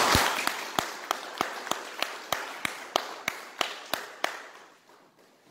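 Applause thinning out to a single person's steady hand clapping, about three claps a second, which fades and stops a little past four seconds in.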